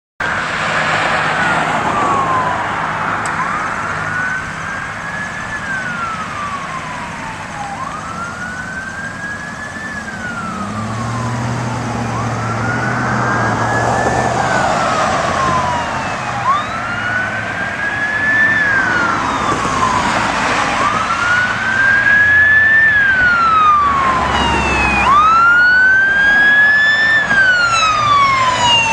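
Electronic sirens of a responding fire engine and ambulance, one wailing in slow rising-and-falling cycles about every four seconds and getting louder as it approaches. A second siren with quicker sweeps joins it about three-quarters of the way through.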